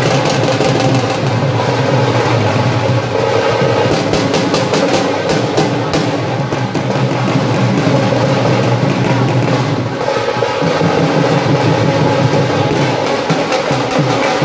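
Several dhols played together at full volume with sticks, in a fast, dense, driving rhythm that goes on without a break.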